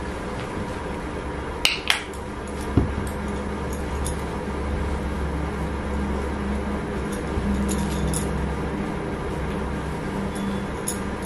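A steady low hum in a small room, with two sharp little clicks just before two seconds in and a soft tap shortly after.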